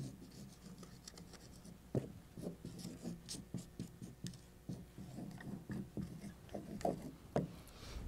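Marker pen writing on a whiteboard: a run of short, faint rubbing and squeaking strokes, one after another.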